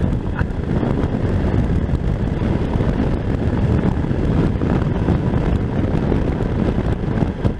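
Steady low wind rumble on the microphone of a motorcycle being ridden along, mixed with the motorcycle's running engine.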